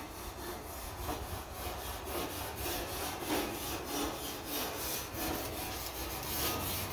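A grill brush scrubbing the grates of a stainless gas grill in rapid back-and-forth strokes, a steady scratchy scraping.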